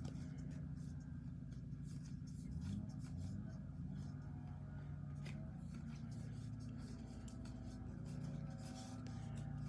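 Faint rubbing and light ticks of baseball cards being handled and flipped through by hand, over a low steady hum.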